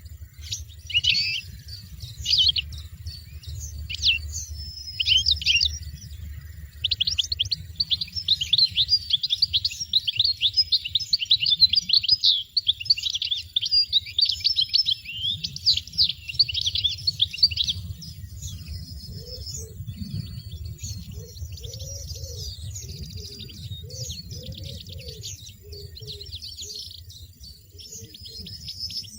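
European goldfinches chirping: scattered high chirps, then a long dense run of rapid chirps from about 7 to 18 seconds in, then softer scattered chirps.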